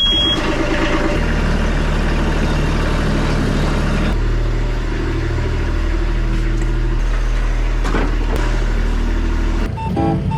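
A vehicle engine is cranked and catches right at the start, then idles steadily with a deep, even hum. Music comes in near the end.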